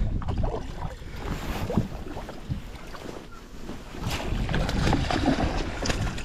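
Wind buffeting the microphone over lapping water around a kayak, with scattered knocks. From about four seconds in there is more splashing as a hooked fish thrashes at the surface beside the kayak.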